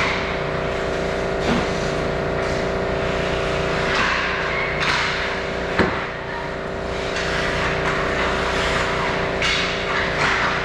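Ice hockey play: skate blades scraping and carving the ice in repeated swishes, with a sharp stick-or-puck clack about six seconds in, over a steady mechanical hum in the rink.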